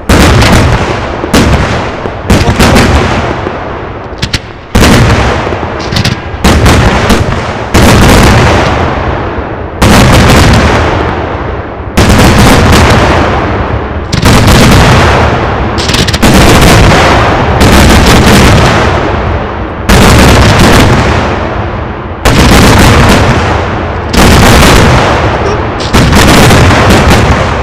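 Large aerial firework shells going off in rapid succession, a loud bang every one to two seconds, each fading out before the next.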